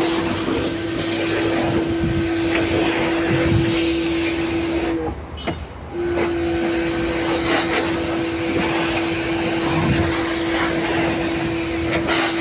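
Motor of an IPC C22 cleaning machine ('lavadora') running with a steady hum over a noisy rush. It cuts out about five seconds in and starts again about a second later.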